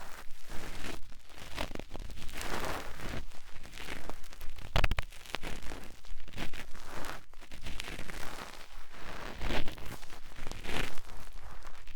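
Cotton swab rubbing and scratching against the ear of a 3Dio binaural microphone in repeated strokes, about one a second. A sharp knock comes a little under five seconds in.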